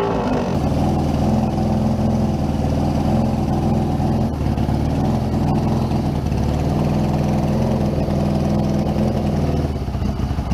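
Suzuki GS550's air-cooled inline-four engine running steadily just after starting. The owner takes this for fuel starvation: the carburettors are not drawing enough fuel.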